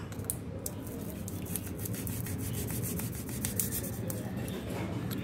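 Knife blade scraping and sawing into a dry, papery, already-hatched praying mantis egg case: a quick run of small scratchy crackles that grows busiest midway and dies off near the end.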